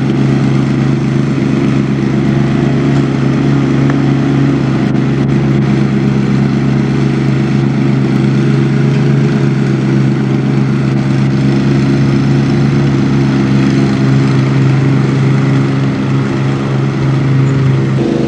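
A small engine running steadily at one speed, with a slight shift in its pitch near the end.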